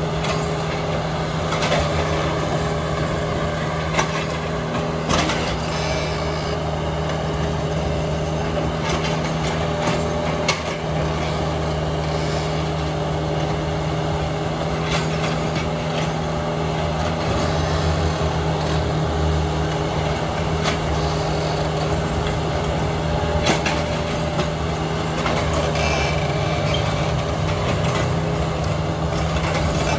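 Diesel engine of a Hyundai 55W-9A wheeled mini excavator running at a steady pitch while it digs a trench, with scattered sharp knocks at irregular moments.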